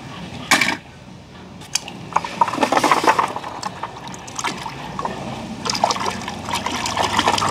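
A hand sloshing and splashing through a basin of murky water in bursts, with one sharp splash about half a second in.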